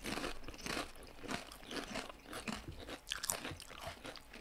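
Potato chips being chewed right at the microphones: a string of irregular crunches, several a second.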